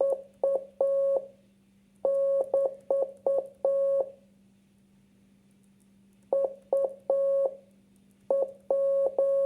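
Morse code practice tone: one steady mid-pitched beep keyed in short and long pulses (dits and dahs), sent in groups with pauses of about two seconds between them.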